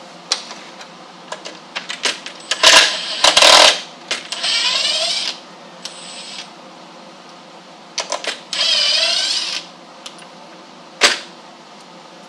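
Cordless power drill-driver backing screws out of metal gate hinges, its motor whining in two runs of about a second each, with loud clatters and metal clicks and knocks as the hinges are worked loose.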